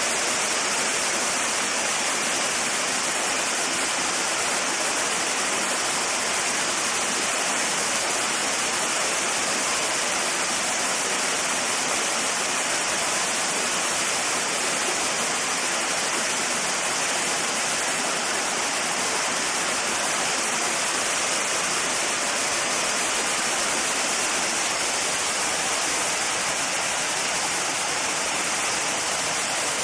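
Waterfall's water falling and splashing: a steady, unbroken rushing hiss.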